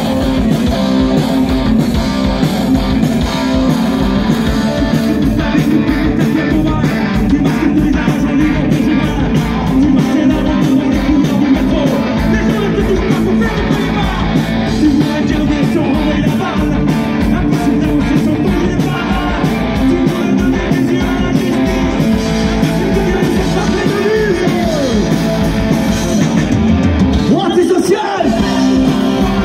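Live rock band playing loud: electric guitar from a Fender Telecaster over drums keeping a steady beat, with a singer's voice over the band, clearest near the end.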